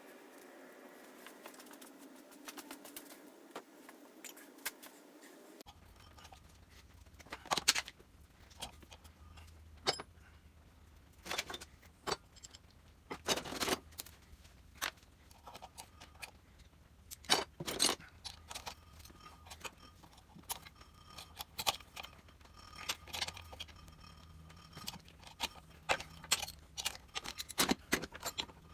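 Irregular light metallic clicks and clinks, some in quick clusters, over a low steady hum that starts about six seconds in.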